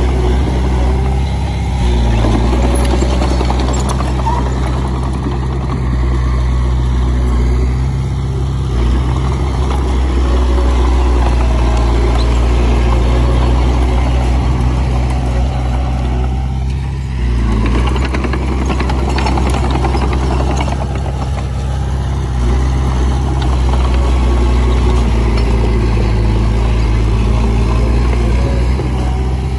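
Komatsu bulldozer's diesel engine running with a steady, deep hum, dipping briefly about nine and again about seventeen seconds in.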